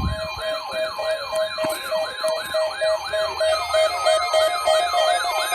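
Weather radio receivers sounding their alert alarms for a required weekly test. A warbling, siren-like tone sweeps up and down about three times a second over a steady run of beeps, and a further steady tone joins about three and a half seconds in.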